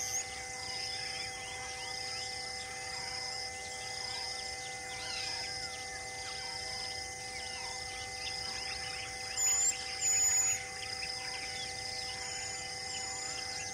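Wild outdoor soundscape of many birds chirping and calling over a steady insect drone. A high call repeats about once a second, and two sharp, very high-pitched bird calls stand out loudest about two-thirds of the way through.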